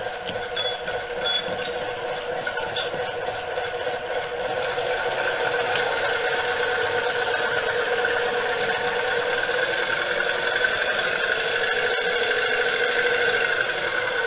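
Model BB301 diesel locomotive running steadily along the track, its small electric motor and wheels making a continuous running noise as it pulls a train of wagons. The locomotive has been freshly repaired and is running smoothly.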